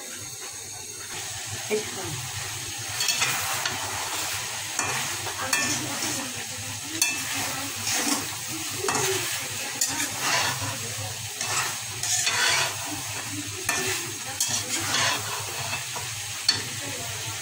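Beef tripe sizzling in a hot metal karai while a spatula stirs it, scraping across the pan in repeated strokes about once a second, with a sharp clink near the end.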